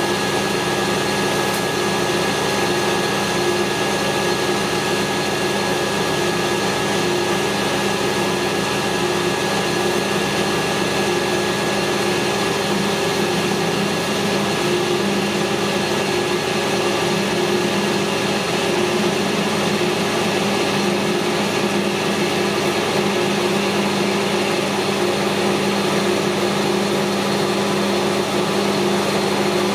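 Metal lathe running steadily at one speed while machining a piece of 100 mm round stock: a constant machine hum with several held tones.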